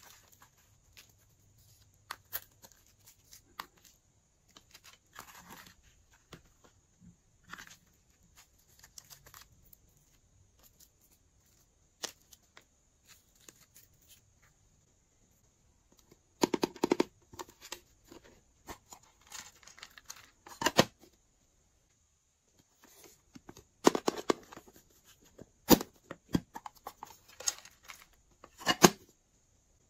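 Plastic packaging crinkling and tearing, with scattered sharp clicks and taps as small glitter and rubber shapes are handled and set down. Louder bursts of rustling and tearing come a little past halfway and twice more near the end.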